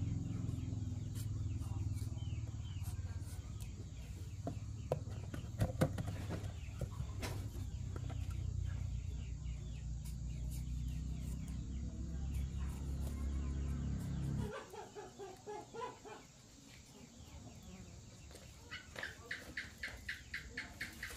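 Chickens clucking, with a low steady drone underneath that cuts off suddenly about two-thirds of the way through. A run of quick regular clucks, about six a second, comes near the end.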